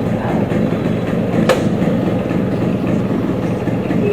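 Motorcycle engine running steadily while the bike is ridden, with one sharp click about a second and a half in.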